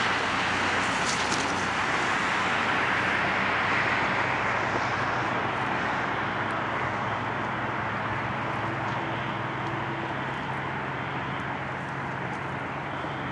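Steady road traffic noise, an even rush with a faint low hum underneath and no distinct events.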